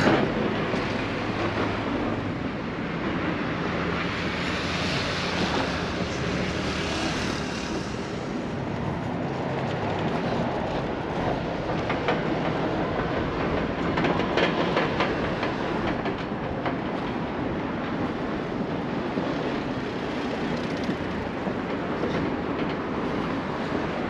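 Steady, continuous rumble of vehicle noise, with a low engine hum in the first couple of seconds that then stops.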